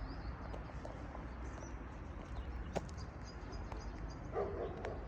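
Outdoor ambience of small birds chirping over a steady low rumble, with a sharp click near the middle and a short, louder, lower-pitched call shortly before the end.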